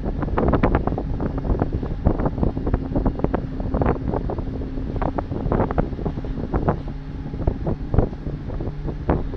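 Wind gusting and buffeting the microphone on the open deck of a Gozo–Malta car ferry, over a steady low hum from the ferry's engines.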